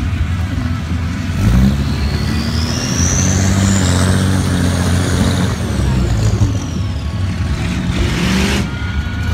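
Dodge Ram pickup truck's engine revving as it drives through a mud pit. A high whine rises over a few seconds, then falls away.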